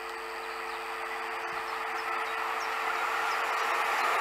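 Approaching passenger train, an electric locomotive hauling Corail coaches, its rolling noise growing steadily louder as it nears.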